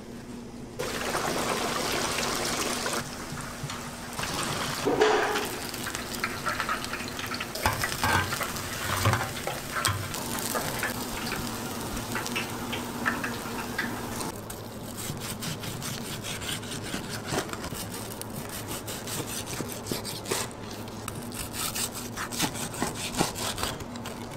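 Kitchen food-prep sounds: a gloved hand rustling through coarse panko breadcrumbs, then hot oil sizzling and crackling densely in the second half as food deep-fries, with a few knocks in between.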